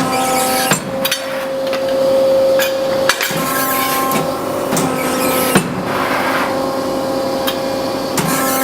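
Premier 25-ton CNC hydraulic press brake running, its hydraulic pump giving a steady hum and whine that fades and returns. Sharp metallic clicks and knocks come every two to three seconds as it works.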